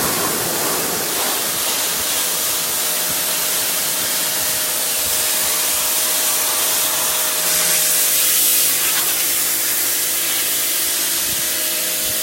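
Electric pressure washer spraying with the trigger held: a steady, loud hiss of the high-pressure water jet with the pump motor's faint steady whine underneath, the hiss swelling briefly about eight seconds in. The motor runs only while the trigger is pulled, so this is the unit working under pressure.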